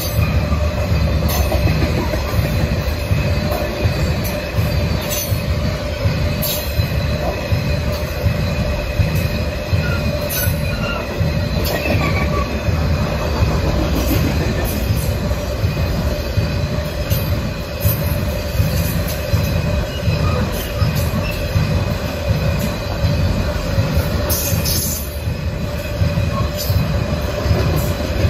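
Covered hopper cars of a long potash freight train rolling past: a steady low rumble of wheels on rail, with a continuous high squeal from the wheels against the rail and occasional clicks.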